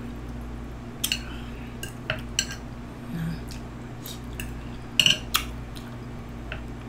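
Cutlery clinking and scraping against a plate: a scatter of sharp clicks, loudest in a quick cluster about five seconds in.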